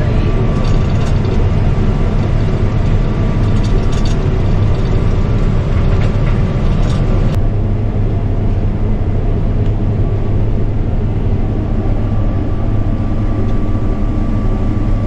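Combine harvester running under load while harvesting, a loud steady engine and machinery drone with a constant whine above it. The upper hiss and rattle drop away suddenly about halfway through while the low drone carries on.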